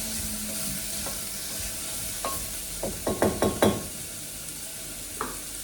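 Onions frying in oil in a pan, a steady sizzle, with a cooking spoon knocking and scraping against the pan in a quick run of five or six strokes about halfway through.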